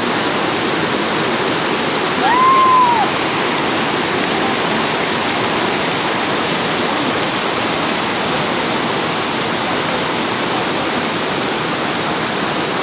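Mountain stream rushing loudly over rocks, a steady roar of water. About two seconds in, one short whistled tone rises and falls over it.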